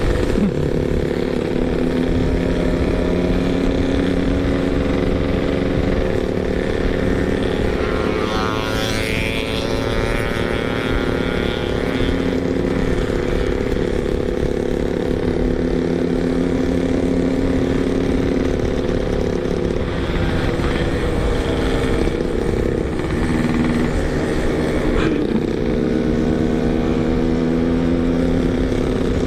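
Yamaha RX-King 135cc two-stroke single engine running while riding on light throttle, its note shifting in pitch with the throttle. A higher rising whine passes between about 8 and 12 seconds in.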